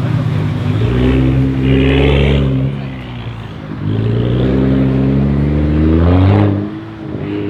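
Tuned, straight-piped BMW 335i with upgraded turbos, its engine revving hard twice. The first pull starts about a second in and eases off after a second and a half. The second climbs steadily in pitch and then cuts off abruptly near the end.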